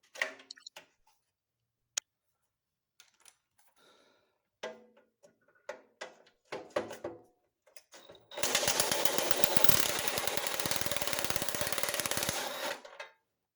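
A few light metal clanks of parts being handled, then a power wrench hammering rapidly for about four and a half seconds as it loosens the front bumper's bolts.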